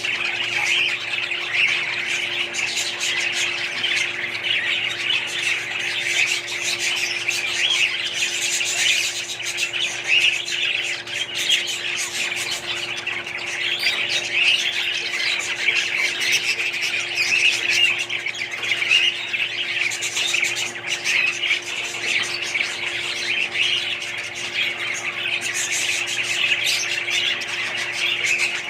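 Many small parrots chattering and squawking all at once in a dense, continuous din, with a steady low hum underneath.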